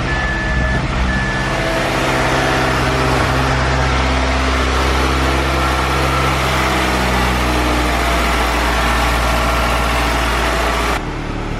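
Mazdaspeed6's turbocharged 2.3-litre four-cylinder idling steadily just after its first start on a freshly flashed stage 0 tune, with two short electronic beeps near the start.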